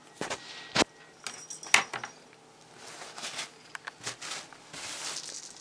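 Rustling of a satin cloth and handling noises as a kitten is moved about on it, with a few sharp clicks; the loudest come about one and two seconds in.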